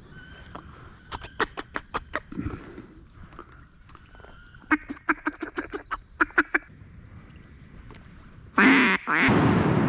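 Two runs of short duck quacks, the second a quick, even series of about ten. Near the end a loud rush of noise sets in and holds.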